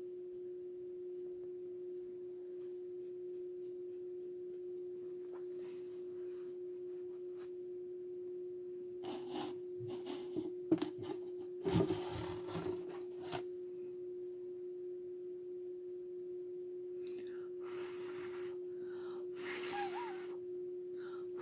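A steady hum at one constant pitch, with short bursts of light knocks and rustles from painting supplies and a plastic container being handled, loudest around the middle and again near the end.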